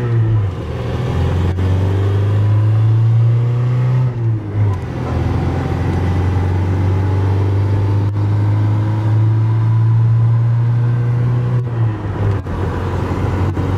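1989 Mitsubishi Mighty Max's carbureted four-cylinder engine heard from inside the cab during a full-throttle run up through the five-speed's gears. Its drone climbs steadily in pitch in each gear and drops back at the gear changes, about half a second in, about four and a half seconds in, and near the end.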